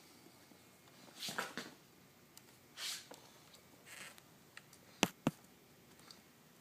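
Irregular short pops from a GasGas motorcycle, a few softer ones followed by two sharp, louder pops in quick succession about five seconds in, with quiet between them.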